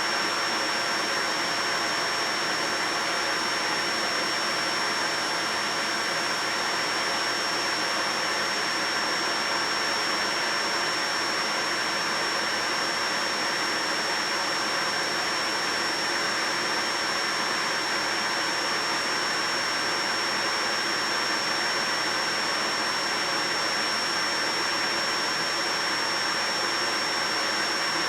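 Vacuum cleaner running steadily: a constant rushing noise with a thin, steady high whine over it.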